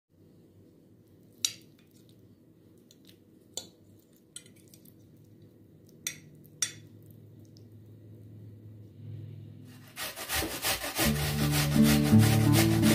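A metal fork clinks sharply against a plate about five times. About ten seconds in, an onion is rubbed quickly up and down a metal box grater, a fast run of rasping strokes, over background music.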